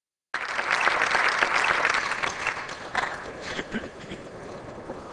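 Audience applauding. The clapping is dense for about two and a half seconds, then thins out to a few scattered claps.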